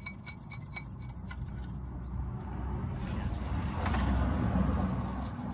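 Light metal clicks of the pressure-plate bolts and socket being handled, then a low rumble that swells and fades, loudest about four seconds in.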